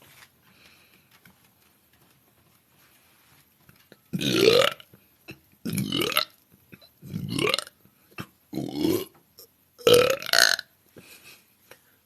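A woman burping repeatedly: about five loud burps about a second and a half apart, starting about four seconds in, several rising in pitch.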